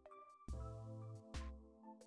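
Quiet background music: a held chord over a low bass note, with a struck note about once a second.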